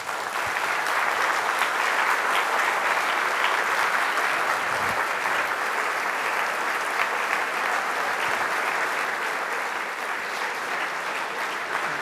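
Lecture-hall audience applauding steadily, a dense crackle of many hands clapping that begins just after the lecturer's closing thanks and keeps going.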